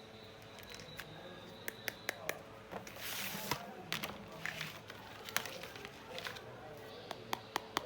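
Handling of a toy makeup set: scattered small clicks and taps of plastic pieces, with a short burst of rustling packaging about three seconds in.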